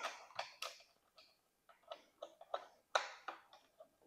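Light, irregular clicks and taps of a heavy red 2-gauge battery cable and its ring terminal being handled and set onto a solenoid post, the loudest about three seconds in.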